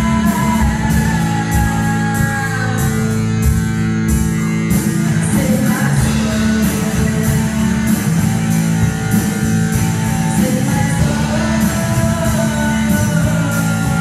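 Live rock band playing: electric guitar over a drum kit with cymbals struck about twice a second, and a voice singing over the top, clearest near the end.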